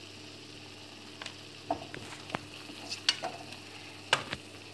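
A wire-mesh spider skimmer clinks and scrapes against a metal kadai as spice masala frying in oil is stirred, over a faint steady sizzle. There are about eight sharp clinks, the loudest near the end.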